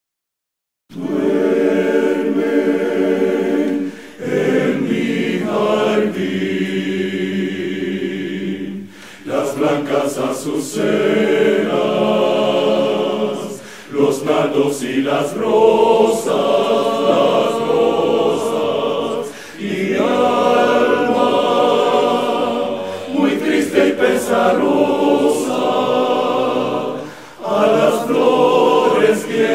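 Choir singing sustained chords in long phrases with short breaks between them, starting about a second in.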